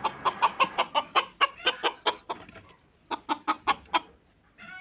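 Village chickens (ayam kampung) clucking in a quick series of short clucks. After a brief pause about three seconds in, a second run follows, and one more cluck comes near the end.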